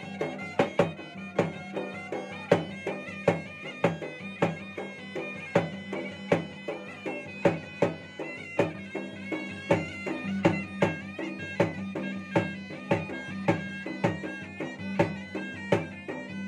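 Makassarese ganrang drums beaten with hands and a stick in a quick, driving rhythm, under a reedy, nasal melody from a pui-pui shawm, the traditional Makassar double-reed pipe.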